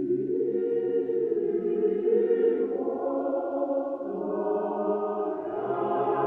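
Background music of choir voices holding slow, sustained chords that shift gradually.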